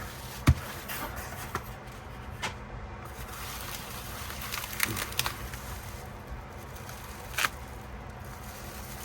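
Handling noises of a package being unboxed: light scraping and rustling, broken by a few sharp clicks, the loudest about half a second in and another near the end.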